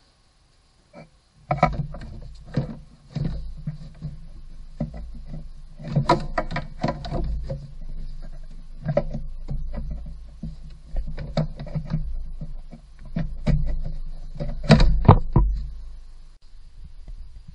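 A plastic engine undercover (splash shield) being worked loose and pulled down from under the car: irregular knocks, clunks and scraping of the plastic panel, loudest near the end as it comes free.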